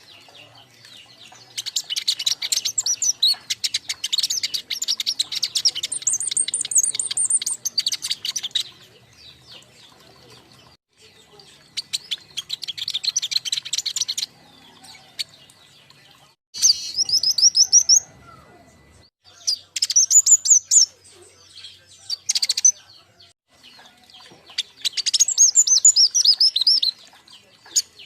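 A group of young King Konin songbirds chirping and singing in bursts of rapid, high twittering notes, with short pauses between the bursts.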